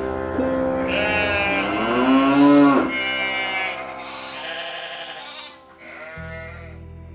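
A cow mooing in long, wavering calls over soft background music. One call glides up and drops off sharply about three seconds in, and the calls stop about six seconds in.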